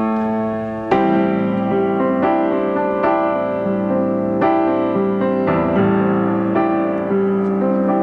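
Piano playing slow, sustained chords, a new chord struck about once a second.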